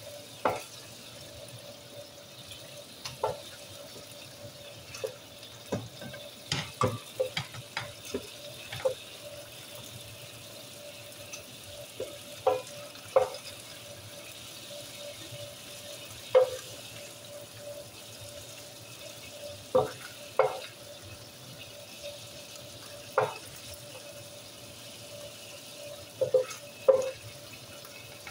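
Diced chicken sizzling in oil and its own watery juices in a nonstick pan. A wooden spoon stirs it, knocking sharply and irregularly against the pan, in quick clusters about a quarter of the way in and again near the end.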